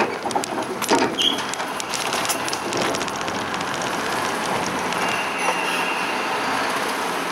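Hino Ranger 4-ton diesel truck rolling over a car ferry's steel loading ramp into the vehicle deck: a few sharp clanks in the first second as the wheels cross the ramp plates, then a steady rumble and rattle. A faint high steady tone joins about five seconds in.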